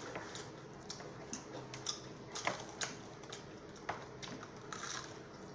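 Close-up eating of a fried chicken leg: irregular crisp clicks and crunches as the crust is bitten and chewed, with a few louder snaps about halfway through.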